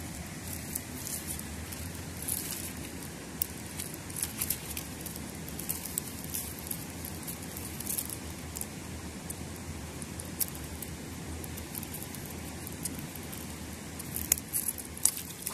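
Faint stirring and lapping of river water around a landing net held at the water's edge with a chub resting in it, with scattered light clicks.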